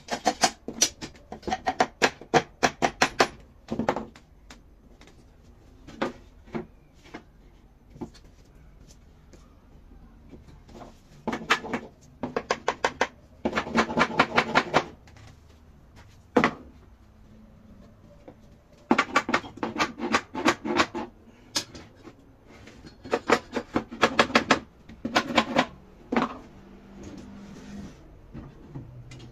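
Hammer tapping the joints of a glued pine mirror frame to close them up during assembly, in quick runs of several taps a second, four runs with pauses between.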